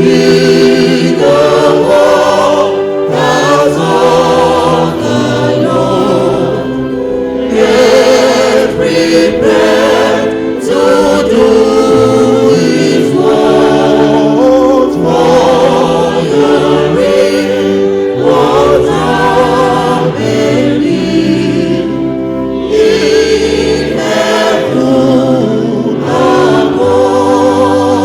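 Choir singing a gospel hymn over instrumental accompaniment, the voices wavering with vibrato.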